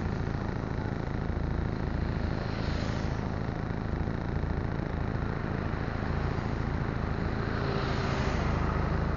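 Vehicle engine idling with a steady low rumble, while road traffic passes about three seconds in and again near the end.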